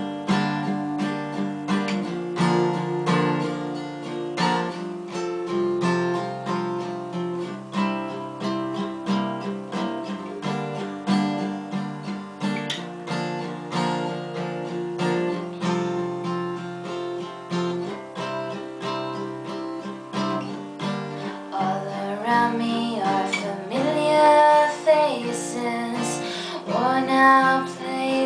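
Acoustic guitar strummed steadily in a chord pattern; near the end a woman's singing voice comes in over it.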